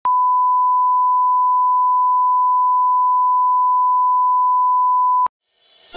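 A steady 1 kHz line-up test tone, the reference tone that accompanies colour bars. It holds one pure pitch at a constant level, then cuts off suddenly about five seconds in.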